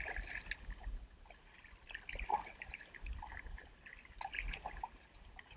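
Kayak paddle strokes in calm water: the blade dips in with small splashes, and water trickles and drips off it between strokes.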